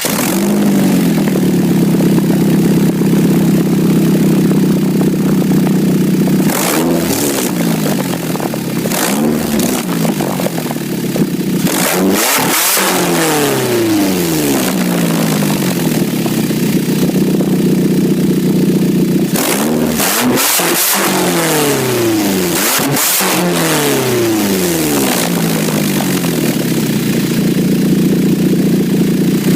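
2006 Nissan Altima engine idling steadily and revved several times in two clusters, each rev rising and falling back to idle, with a loud raspy exhaust note from a leak at the flex pipe.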